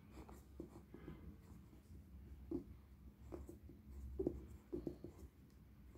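Pencil writing on graph paper: faint, irregular scratching of the lead in short strokes as a word is written.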